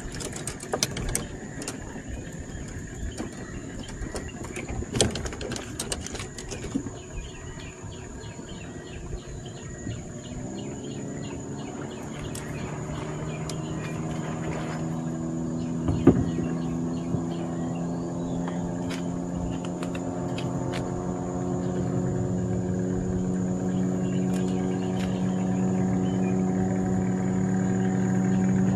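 A small boat engine, most likely an outboard motor, starts with a slight rise in pitch about ten seconds in and then runs steadily, growing louder to the end, with a single sharp knock partway through. Before the engine starts there are scattered light clicks and knocks over a steady high tone.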